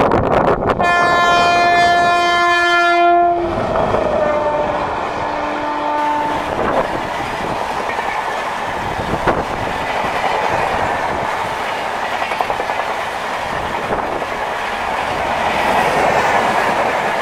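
Indian Railways WAP-7 electric locomotive sounding its two-tone horn: a higher note for about two and a half seconds, then a lower note for about three seconds. The express train runs past throughout with a steady rumble and wheel clatter over the rail joints.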